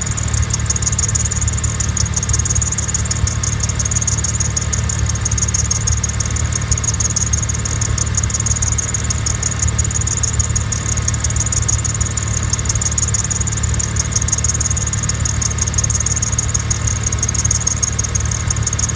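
Mazda RX-7 rotary engine idling steadily, with a fast, high-pitched scratchy ticking (a 'karikari' noise) running over the low engine note. The owner asks whether it is a sign of a fault or a blown engine.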